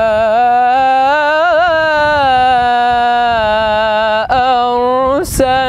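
A man's solo Quran recitation in the melodic mujawwad style, drawing out the word 'fa-mā' as one long ornamented note in maqam Kurd. The note wavers about a second and a half in, breaks off briefly about four seconds in, and resumes with a short upward slide.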